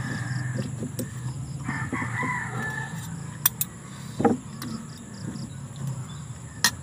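A rooster crows twice: one crow trails off just after the start, another runs from about two to three seconds in. Between them, metal utensils click a few times against a metal pan.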